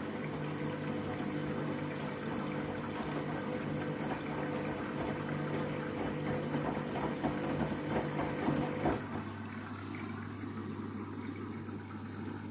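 Washing machine drain pump running with a steady hum while water is pumped out, turning to gurgling as the drum empties. The pump cuts out about nine seconds in.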